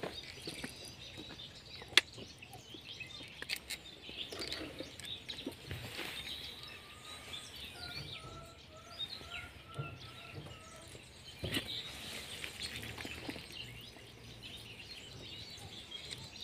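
Small birds chirping and calling, with a run of about six repeated clear notes around the middle. A single sharp click about two seconds in.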